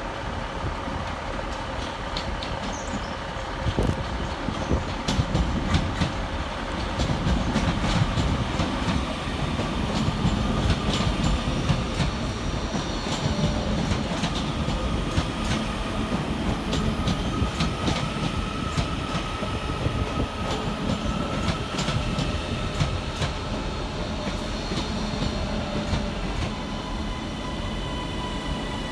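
Northern Class 331 electric multiple units, two coupled together, running into the platform. Their wheels click over rail joints, with thin high tones of wheel squeal over a steady rumble that grows louder about four seconds in.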